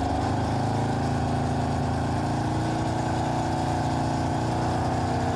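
Car engine held at steady elevated revs for a stationary exhaust-noise test, a loud, even drone from the exhaust that edges up slightly at the start. The officers put the car's excess loudness down to a defective exhaust flap.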